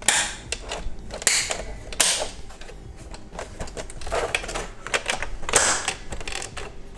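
Plastic parts of a GM truck instrument cluster handled and clipped back together: irregular clicks, snaps and short scraping rustles, the strongest at the start and at a few moments after.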